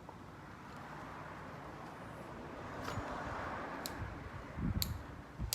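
Hands working small plastic parts: a soft scraping rustle as a USB socket's locking ring is turned tight against a plastic panel, with a few sharp clicks and light knocks near the end.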